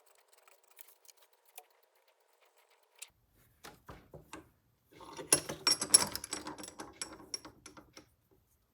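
Small hard objects being handled on a workbench: a few scattered clicks, then a dense clatter and rattle from about five seconds in that stops shortly before the end.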